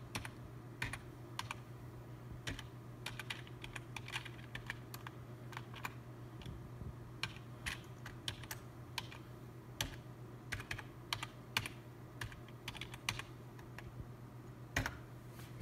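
Typing on a computer keyboard: irregular, unevenly spaced key clicks as a command line is entered. A steady low hum runs underneath.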